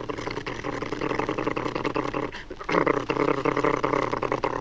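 A man's voice imitating a helicopter's buzzing: a steady-pitched, rasping vocal buzz held in two long stretches with a short break for breath about halfway.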